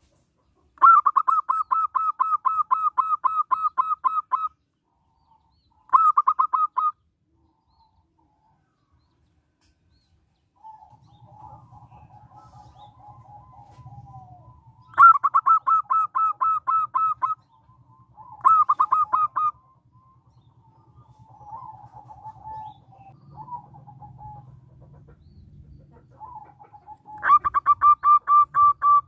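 Zebra dove (perkutut) cooing in rapid staccato trains of about five notes a second. There is a long bout near the start, short bouts after it, and another long bout near the end. Softer, lower cooing falls between the bouts, over a faint low hum from the middle on.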